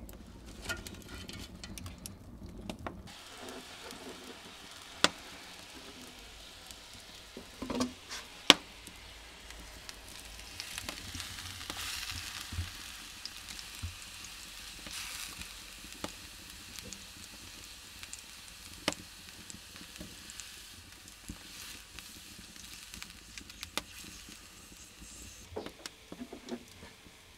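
Pot of water boiling over a wood fire: a steady sizzling hiss, with sharp crackling pops from the burning wood, two of them loud.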